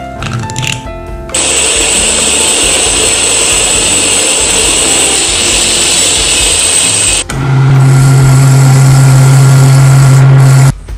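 Steady hissing rush of abrasive blasting in a blasting cabinet for about six seconds, cutting off sharply. About seven seconds in, a small wood lathe takes over, its motor giving a steady low hum while a scouring pad polishes the spinning metal ferrule of a wooden knife handle.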